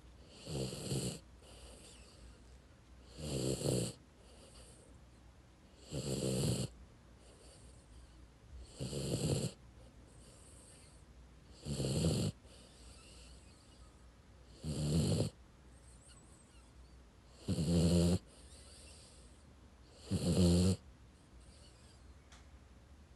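A sleeping dog snoring in a steady rhythm: eight short snores about three seconds apart, each about half a second long, with fainter breaths in between.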